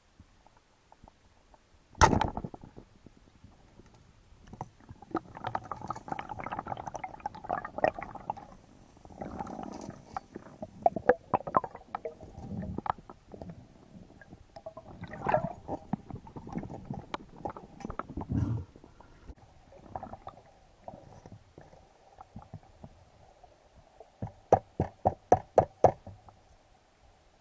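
Speargun firing underwater, one sharp crack about two seconds in. It is followed by irregular knocks and dull rumbles as the gear is handled, and a fast run of about eight clicks near the end.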